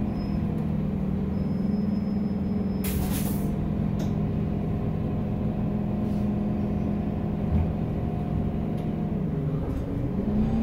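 Solaris Urbino 12 CNG city bus under way, heard from inside the cabin: the compressed-natural-gas engine drones steadily, its note dropping near the end and then rising again. A short sharp hiss of air comes about three seconds in.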